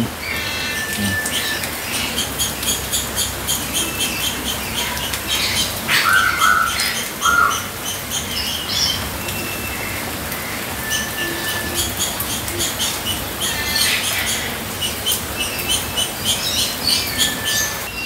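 Steady rain falling, with various birds chirping and giving short whistles throughout, and two brief, harsher calls about six and seven seconds in.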